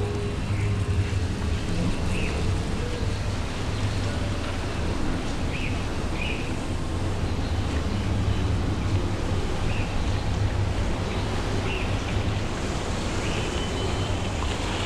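Ambient soundtrack of noise textures: a steady wash like wind or surf over a low hum, with short high chirps every few seconds.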